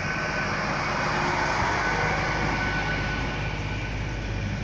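Hitachi Class 800 IET bi-mode train moving slowly past at low speed on its underfloor diesel engines: a steady engine rumble and rushing noise with a high whine that fades about three seconds in.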